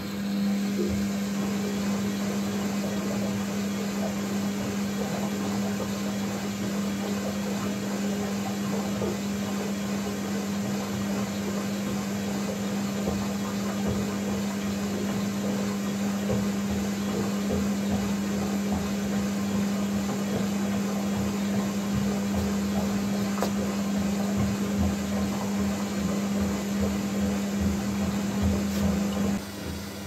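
Indesit Innex washing machine running with a steady, even hum that drops in level just before the end.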